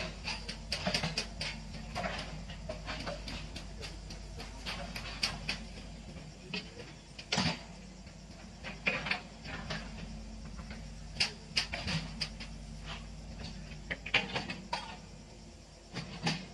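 Hitachi EX120 hydraulic excavator's diesel engine running with a steady low hum while it works through brush, with irregular sharp cracks and knocks throughout.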